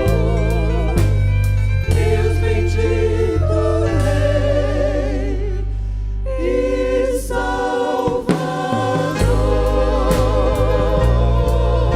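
Gospel song: several voices singing sustained notes with vibrato over bass and drums. The bass drops out briefly about eight seconds in.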